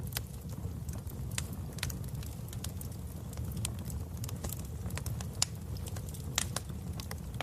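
Fire in a fireplace crackling: irregular sharp pops and snaps over a steady low rumble of the flames, with the loudest pops about five and a half and six and a half seconds in.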